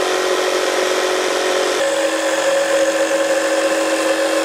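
Electric jigsaw running steadily as it cuts a cutout in a wooden board; its pitch steps slightly lower about two seconds in.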